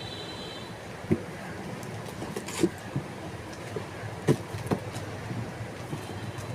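A few scattered knocks and clicks, about five of them, from objects being handled on a surface, over a steady low background hum.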